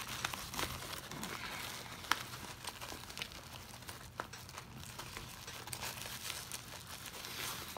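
Nylon webbing and pouch strap of a Shellback Tactical Banshee plate carrier rustling and scraping as the MOLLE strap is woven through the loops and pulled snug, with scattered light clicks.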